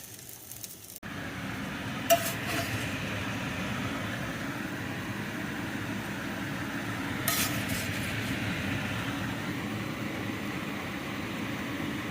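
A steady kitchen hum with two light clinks of dishes or utensils, one about two seconds in and another about seven seconds in.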